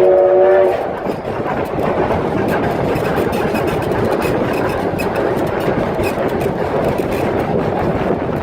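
A train's multi-note air horn sounds a chord that cuts off under a second in. Then the train runs past with a steady rumble of wheels on rail.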